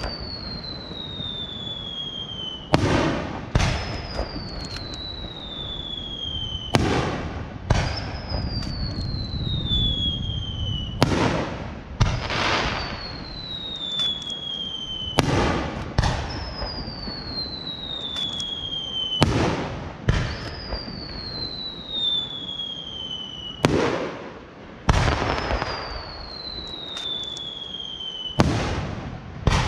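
Aerial firework shells fired and bursting one after another: sharp bangs come in pairs about every four seconds. After each pair a whistle slides down in pitch for about two seconds.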